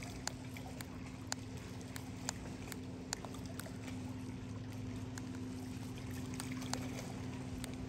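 Steady low motor hum with scattered light clicks and ticks.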